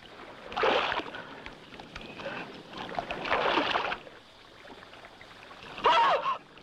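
Water splashing and sloshing as two people wade through waist-deep muddy water, in two surges about half a second in and around three seconds in. Near the end comes a brief vocal sound, a gasp or moan without words.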